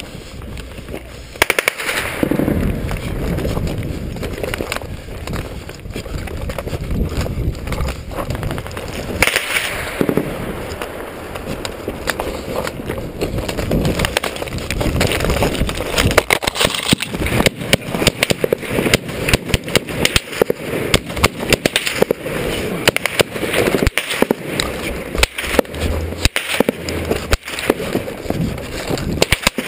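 Gunfire in irregular cracks and bursts, mixed with boots scrambling and crunching over loose rock and stones; the sharp reports come thicker in the second half.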